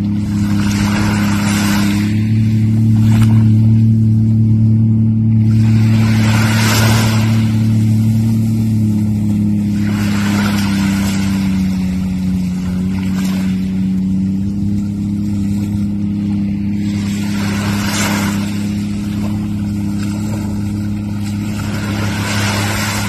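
Jet ski engine running at a steady cruising speed close by, its pitch sagging slightly partway through and then recovering. Noisy whooshes of water and spray come every few seconds.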